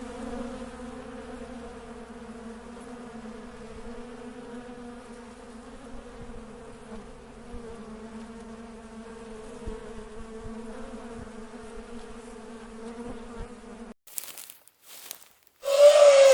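Insect swarm buzzing in a steady drone, which cuts off suddenly about fourteen seconds in. A few sharp clicks follow, then a loud, short cry about a second long near the end.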